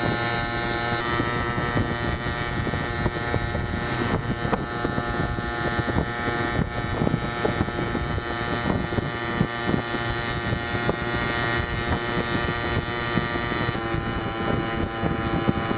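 Small motor vehicle's engine running steadily while towing a trailer along a road, its pitch shifting slightly about a second in and again near the end. Rattles and knocks from the trailer bumping over the road, and wind on the microphone.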